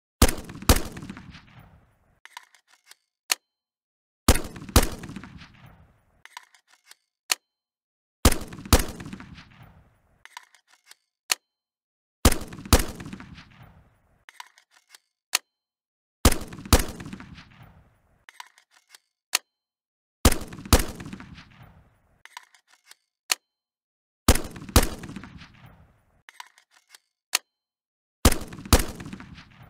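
A sharp, heavy hit doubled about half a second later, with a tail that fades over about two seconds and a few faint clicks after it, repeated every four seconds, eight times: an edited, looped sound effect.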